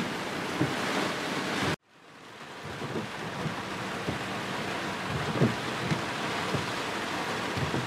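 Heavy rain from a hurricane's first rain bands pouring steadily, with short gusts of wind rumbling on the microphone. About two seconds in the sound cuts out abruptly at an edit, then fades back up into the same rain.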